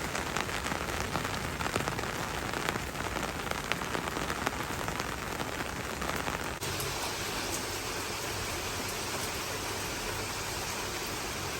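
Steady rain falling, with many individual drops ticking over the hiss. About two-thirds of the way through the sound changes abruptly to a smoother, steadier rain hiss with fewer distinct drops.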